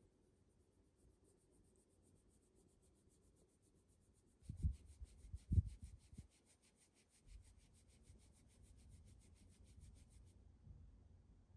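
A hand rubbing and stroking a Shiba Inu's belly fur, a faint rubbing, with a few soft low thumps about halfway through.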